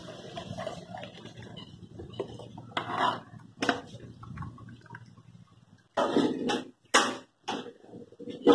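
Milk trickling and dripping through a plastic strainer into a pot as the pour tails off in the first second. This is followed by several short knocks and clatters of the strainer and pot being handled.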